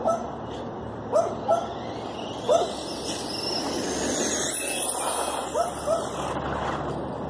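High-pitched electric whine of a Traxxas Stampede 2WD RC truck's Castle 5900kv brushless motor at speed, rising and falling in pitch, from about two and a half seconds in until just past six seconds. A dog yips sharply several times, often in quick pairs, louder than the motor.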